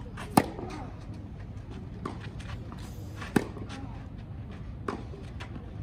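Tennis rally on a clay court: sharp racket-on-ball hits about every one and a half seconds, alternating loud and fainter, the loudest about half a second in, with shoes scuffing on the clay.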